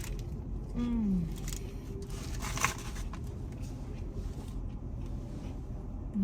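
Steady low rumble inside a moving car, with a short falling vocal hum about a second in and a brief click a little later.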